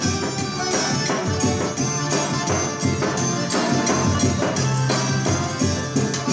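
Forró band playing an instrumental passage between sung verses, with a steady dance beat and a repeating bass line.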